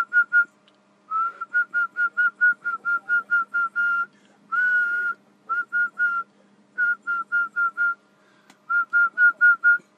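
A person whistling into the Jopix Itaca CB transceiver's microphone in runs of short, quick toots, about five a second, with one longer held note about halfway: a whistle test driving the radio's single-sideband transmitter, now working again after repair.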